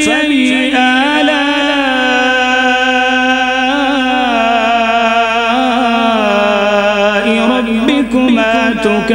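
A man's voice reciting the Quran in melodic tajweed, holding long drawn-out notes with wavering ornaments. The pitch steps lower after about six seconds.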